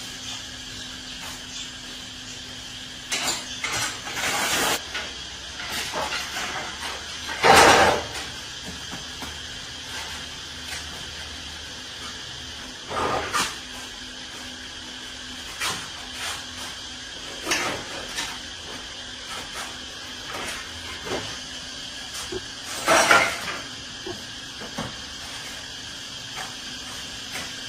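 Scattered knocks and scrapes of hand work, a dozen or so short separate clatters, over a steady low hum and hiss. The loudest come about eight seconds in and again near 23 seconds.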